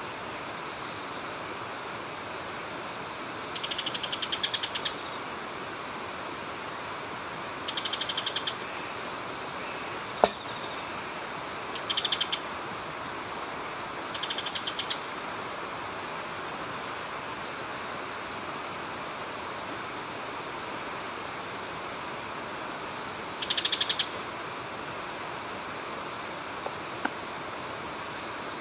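Steady rush of water pouring over a weir, with a high, rapidly pulsed trill that sounds five times, each lasting about a second. A single sharp crack sounds about ten seconds in.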